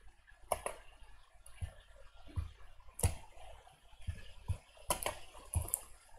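Faint, irregular knocks and clicks in a small room, about a dozen soft thumps and sharp ticks at uneven intervals.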